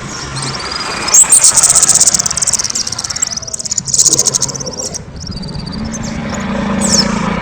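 Kemade songbird singing a loud run of very rapid, high-pitched trills and chirps, densest from about one to five seconds in, then breaking into scattered high chirps.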